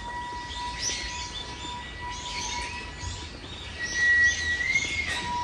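Small birds chirping busily, many short overlapping calls. Under them a steady held high tone, like one long pipe note, swells and bends up in pitch about four seconds in.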